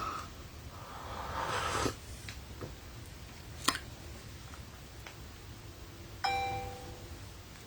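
A single bell-like ding, struck suddenly about six seconds in and fading within a second. Before it come a soft rustle and one sharp click.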